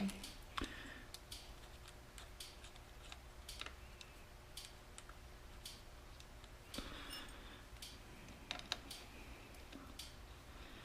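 Faint, scattered light clicks and taps of hand work on the motorcycle's swingarm: a spool slider being threaded in by hand with a hex key. The clicks come irregularly, with a slightly louder rustle about seven seconds in.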